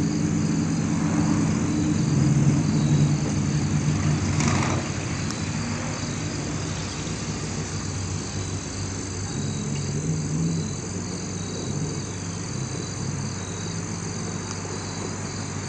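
Truck engine running steadily with a low hum, swelling for a couple of seconds about two seconds in, then settling.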